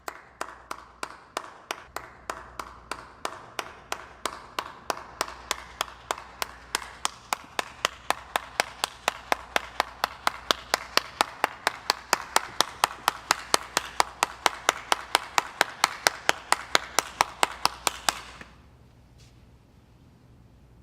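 Steady rhythmic handclapping, about four claps a second, growing louder and then stopping suddenly near the end.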